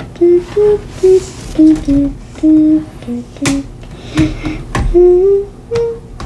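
A person humming a wandering tune in short notes that step up and down in pitch, with a few sharp clicks of plastic Lego Technic pieces being handled among the notes.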